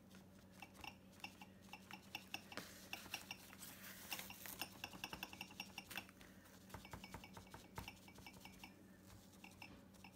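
Faint, quick dabbing and light clicking of a natural sea sponge pressed again and again onto a painted countertop board, blotting white paint to soften the veins. A steady low hum sits underneath.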